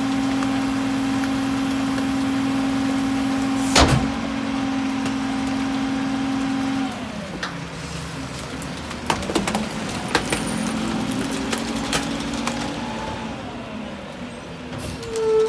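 Heil split rear-loader garbage truck running its packer: a steady hydraulic whine from the engine-driven pump, with a loud clunk about four seconds in. The whine stops about seven seconds in, and the truck's engine and body rattles and clanks follow as it pulls away.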